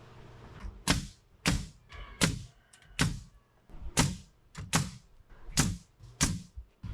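Hammer blows struck one after another, about ten in all, each a sharp knock with a brief ring, at a steady but slightly uneven pace of roughly one every two-thirds of a second.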